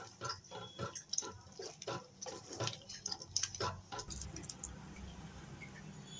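A spoon stirring and scraping thick spinach-and-lentil dal in a nonstick frying pan, in quick irregular strokes. The strokes stop about four seconds in, leaving a faint steady hum.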